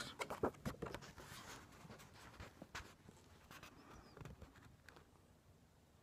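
Faint, scattered small clicks and ticks, thickest in the first second and thinning out after that.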